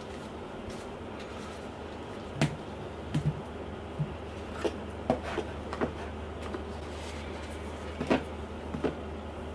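Cardboard and paper packaging being handled and set down: about ten light knocks and taps, scattered unevenly with the loudest a few seconds in, over a steady low hum.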